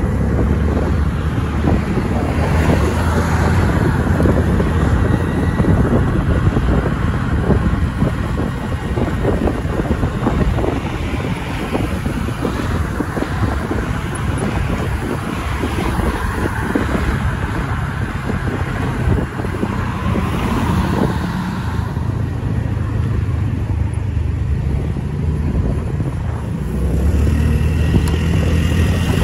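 Motorcycle riding through city traffic: the engine running under steady road and wind noise on the microphone, getting louder near the end.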